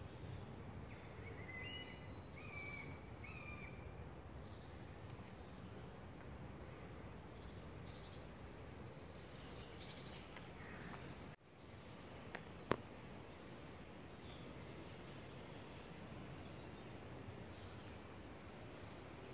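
Small birds chirping with many short high notes, some lower, flat whistled notes in the first few seconds, over a steady low background noise. A single sharp click about 13 seconds in.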